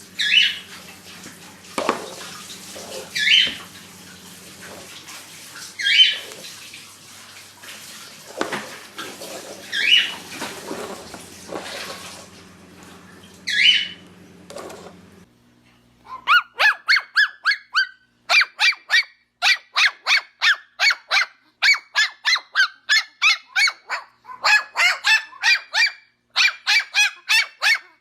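Birds calling: a loud, falling call every three or four seconds, then, after a sudden change about halfway through, a fast, even run of short repeated calls, about two or three a second.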